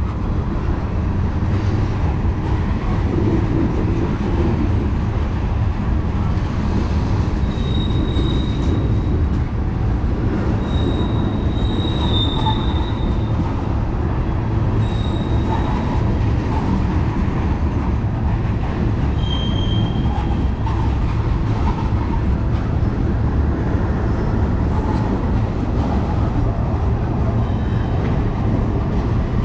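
Freight cars of a CSX manifest train rolling past with a steady rumble of wheels on rail. Short high-pitched wheel squeals come several times between about 7 and 16 seconds in, and once more around 19 seconds.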